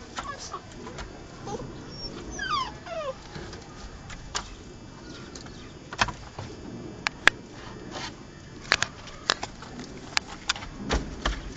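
A Labrador dog whimpering, with a quick run of falling whines about two seconds in. Sharp clicks follow in the second half.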